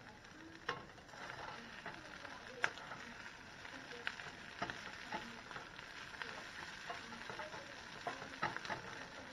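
Green beans and cheesy breadcrumbs sizzling in a non-stick skillet as they are stirred and turned with a slotted spatula, with frequent scrapes and taps of the spatula on the pan. The sharpest knock comes about two and a half seconds in.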